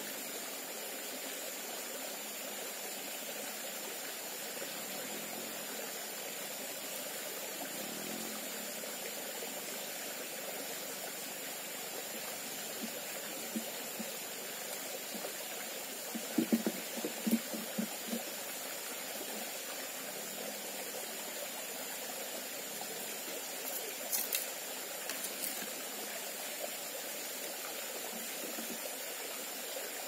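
Small forest stream trickling over rocks into a pool, a steady water rush with a thin high tone above it. A quick run of short, low blips comes a little past halfway, and a few sharp clicks follow later.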